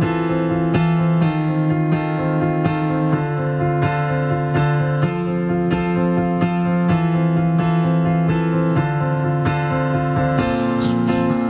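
Piano playing an instrumental passage of a slow pop-ballad arrangement: sustained chords over a held bass note, the chord changing every couple of seconds.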